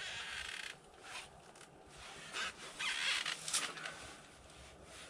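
Several short bursts of rustling and scraping: people in winter clothing shifting about and handling ice-fishing gear.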